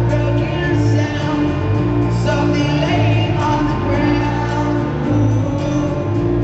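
Live rock band playing: a male singer over drums, bass and electric guitar, heard from the crowd.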